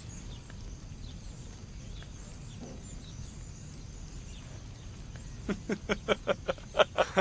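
Low, steady background, then from about five and a half seconds in, men laughing in a quick run of repeated 'ha' pulses, about five a second, that grows louder toward the end.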